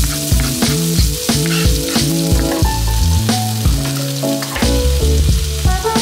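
Food sizzling and frying in a nonstick pan, onion and then ground meat, with some stirring. Background music with a bass line and a steady beat plays over it and is the loudest part.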